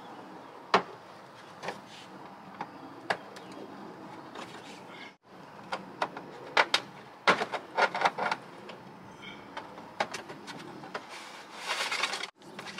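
Scattered clicks, taps and scraping from hands working against a plastic fender liner while feeding a rock-light wire through a freshly drilled hole, with a short rustling scrape near the end.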